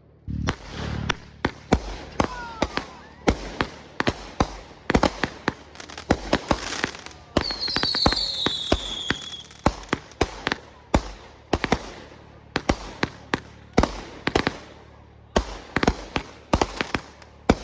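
Fireworks going off in a rapid series of sharp bangs, two or three a second, from a fireworks show. About halfway through, a cluster of whistling fireworks shriek and fall in pitch, and more whistles start right at the end.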